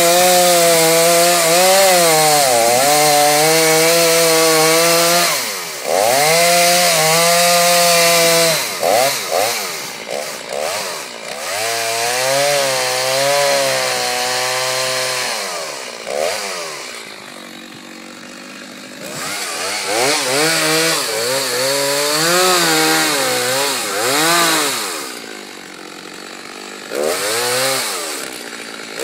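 Chainsaw carving wood, its engine revving up and down as it bites into the cut and eases off. It drops back to a lower, quieter run twice, about two-thirds of the way through and near the end, then picks up again.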